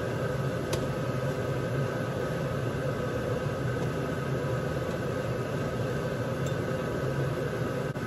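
Steady kitchen hum: a low rumble with a few steady tones over it, unchanging throughout, with one light tap about a second in.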